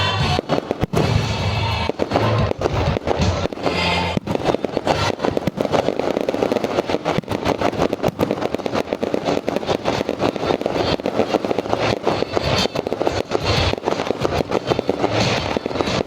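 Fireworks going off in rapid succession, a dense run of bangs and crackles, over loud music from the display's sound system.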